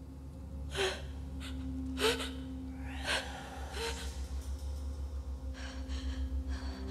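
A young woman gasping in fright: four short, sharp gasps about a second apart, then quick, shaky breaths, over a steady low drone.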